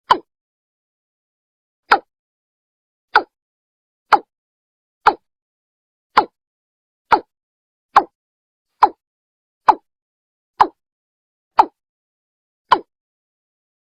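Watercock (Gallicrex cinerea) calling: a steady series of short notes, about one a second, with silence between them.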